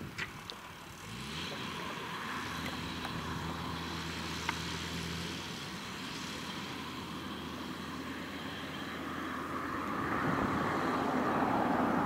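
Deutz-Fahr tractor engine running while it pulls a McHale F5500 round baler: the engine note rises about a second in, then holds steady. A sharp click comes about four and a half seconds in, and a louder rushing noise builds near the end.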